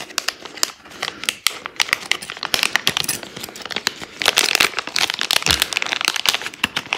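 Clear plastic packaging bag crinkling and crackling as fingers handle and open it, a dense irregular run of crackles that grows busier after the first couple of seconds.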